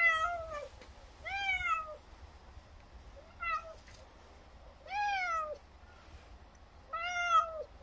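Frail old feral cat meowing five times, each call rising then falling in pitch: it is begging for more churu treats after finishing the tube.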